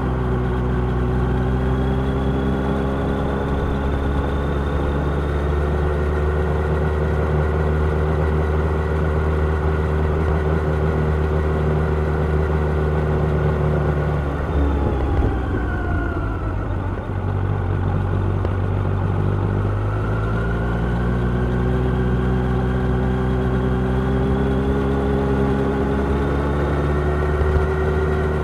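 Kawasaki Ninja 1000 inline-four engine running at a steady cruise. About halfway through the note drops in pitch as the throttle eases off, then climbs back up under acceleration and holds steady again.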